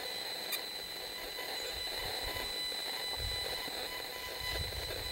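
Safe and Sound Pro RF meter's speaker giving a steady high-pitched tone, its audio rendering of the microwave signals it is picking up. A faint click about half a second in and a few low rumbles in the second half.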